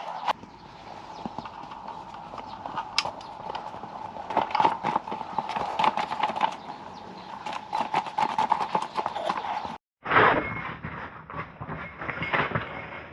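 Irregular light knocks and clicks over a steady background hum. The sound drops out for a moment about ten seconds in, then comes back against a different background.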